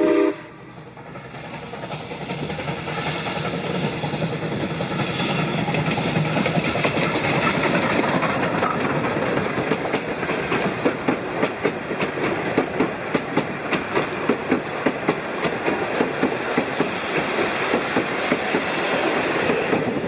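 Steam train hauled by South Australian Railways Rx-class 4-6-0 steam locomotive RX 207 running past. Its whistle cuts off right at the start, and the rumble of the train builds over the next few seconds. From about halfway there is a steady clickety-clack of wheels over rail joints.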